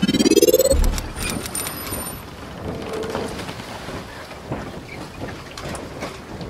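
Channel logo intro sound effect: a rising whoosh that ends in a low boom about a second in, a brief high ringing tone, then a steady noisy hiss with scattered clicks.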